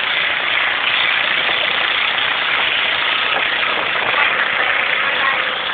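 Small motorboat under way: its engine runs steadily, mixed with the rush of water past the hull.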